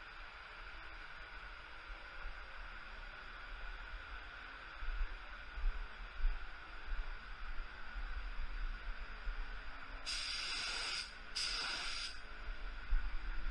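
HVLP gravity-feed spray gun spraying base coat at about 29 psi: two hissing blasts of air and paint, about a second each, near the end, over a steady background hiss.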